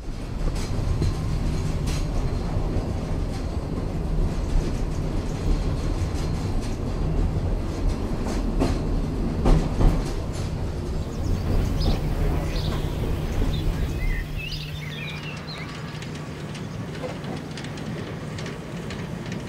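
Narrow-gauge steam train rolling on the rails: a steady low rumble with scattered clicks of the wheels, which fades down about fourteen seconds in.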